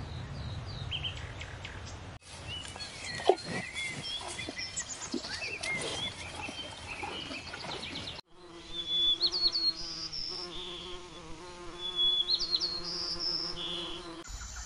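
Small birds chirping, then from about eight seconds in a flying insect buzzing in a steady drone, with sparrow chirps over it.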